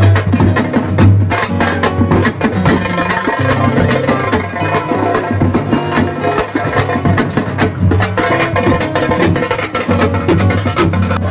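Loud, drum-heavy music with fast, dense beats over a deep bass line.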